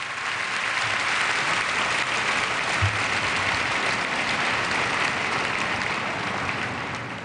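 A large arena audience applauding, swelling up over the first second and easing off near the end.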